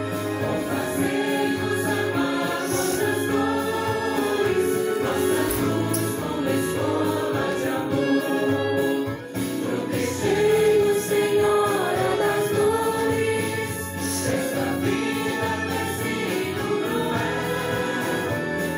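A choir singing a hymn with musical accompaniment, several voices holding and moving between sustained notes over steady low notes.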